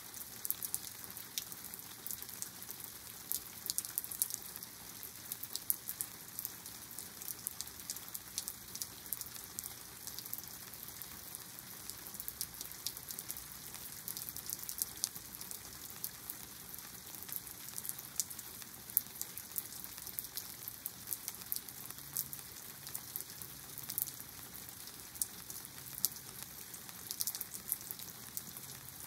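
Steady rain shower falling, dense with the crisp ticks of individual drops hitting nearby surfaces.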